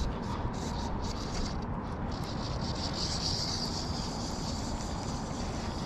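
Wind rumbling on a head-mounted action camera's microphone, with brief rustles of clothing and hands handling a fly rod in the first couple of seconds; a steady high hiss joins about two seconds in.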